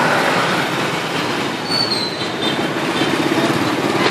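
Dense city traffic close up: motorbike and scooter engines running and cars passing within a few feet. A brief high squeal comes about two seconds in.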